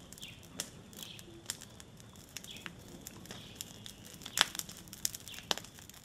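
Burning brush pile crackling with irregular sharp pops, the loudest a little past four seconds in and again about five and a half seconds in. A few short falling bird chirps sound in the first half.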